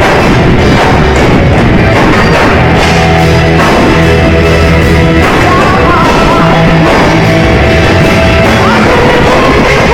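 Loud live rock band playing, with distorted electric guitars, drums and bass, and a voice singing or shouting.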